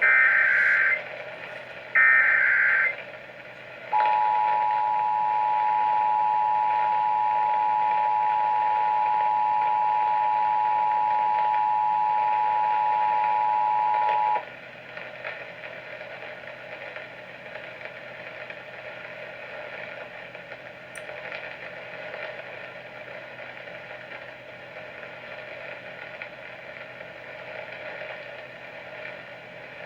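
Emergency Alert System tones over the radio: the last two of the shrill one-second data bursts of an EAS header, then the two-tone attention signal held steady for about ten seconds before it cuts off sharply, leaving faint radio hiss.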